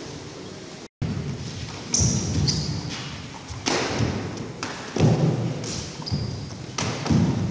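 Kempo fighters sparring: a run of thumps from blows landing and feet hitting the floor, about half a dozen in six seconds. The sound cuts out completely for a moment about a second in.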